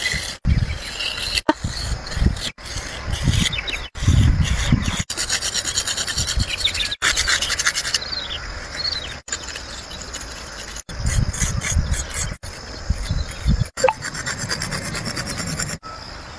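A drawing tool rubbing and scraping over a rough concrete road surface in a string of short clips, each cut off abruptly, with low rumbles in some stretches.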